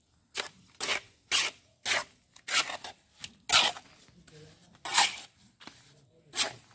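Mason's trowel scraping wet cement mortar against hollow concrete blocks and the mortar pan: about eight short scraping strokes, irregularly spaced.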